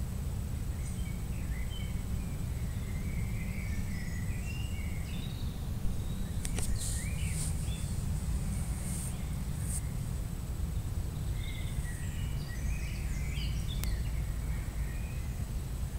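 Steady low background noise with a constant thin high whine, faint chirps in two stretches, and a few sharp clicks in the middle.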